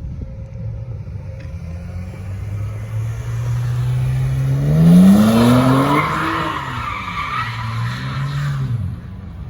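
Car engine revving up sharply about halfway through while the tyres squeal for a couple of seconds, then the revs fall back.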